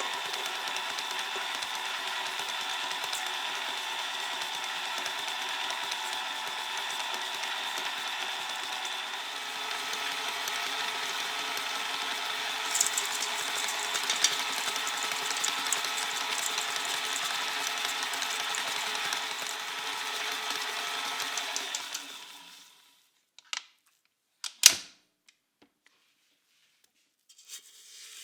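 A small electric kitchen appliance motor runs steadily with a constant whine for about 22 seconds, then switches off. A few sharp knocks follow, one of them loud.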